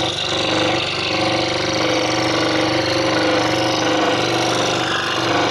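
Scroll saw running steadily, its reciprocating blade cutting through a wooden puzzle board with an even, unchanging hum.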